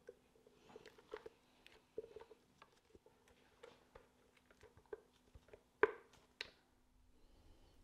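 Faint scraping and tapping of a silicone spatula against a plastic blender jar as thick taro paste is scraped out, a series of soft irregular clicks and scrapes, with the sharpest tap a little before the end, over a faint steady hum.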